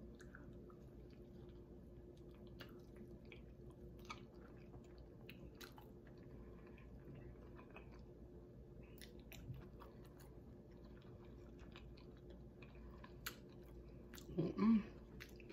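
Close-miked chewing of a mouthful of soft vegan street taco, with small wet mouth clicks and smacks scattered through. Near the end comes a short vocal sound from the eater, the loudest moment.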